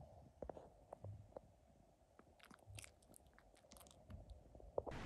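Near silence: room tone with a few faint, scattered small clicks.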